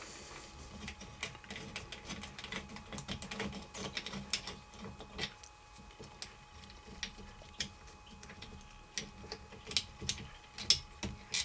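Light, irregular metallic clicks and ticks of a hand tool on the small bolts at the end of a starter motor solenoid as they are undone, with a few louder clicks near the end.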